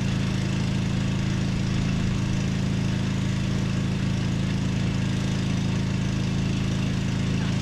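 Cub Cadet XT1 riding lawn mower's engine running steadily, with no revving.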